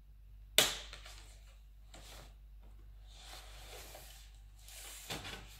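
A sharp plastic snap about half a second in as a cat tugs the elastic strap of a plastic document folder with its teeth, followed by rustling and scraping of the folder and a paperback being dragged across a wooden table, with a couple of smaller knocks near the end.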